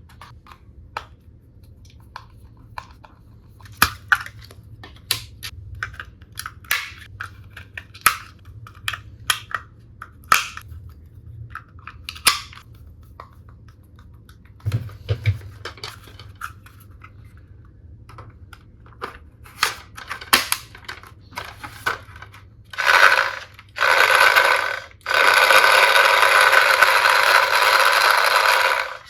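Plastic toy-tool pieces and packaging being handled: scattered light clicks and taps. Near the end come two short bursts and then about four seconds of louder continuous rasping noise.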